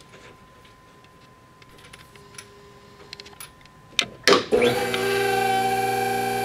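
Light clicks and rattles of a hydraulic hose and fitting being handled and set into a crimper. About four and a half seconds in, a few sharp clicks are followed by a loud, steady held sound of several pitches that keeps going.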